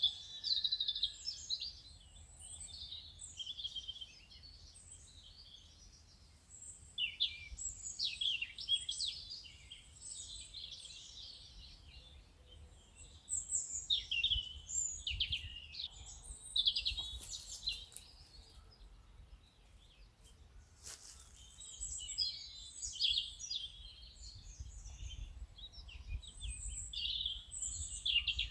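Several songbirds chirping and trilling in overlapping bursts, over a faint low background rumble.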